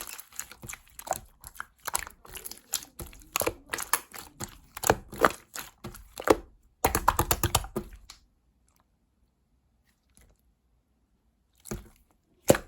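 Slime being squeezed and poked by hand: a quick run of small clicks and pops, densest about seven seconds in. It stops for a few seconds, then two more clicks come near the end.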